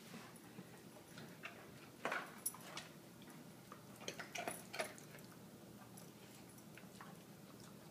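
Coonhound's toenails clicking faintly on a hardwood floor in a few slow, irregular steps, with a cluster of clicks about two seconds in and another around four to five seconds in.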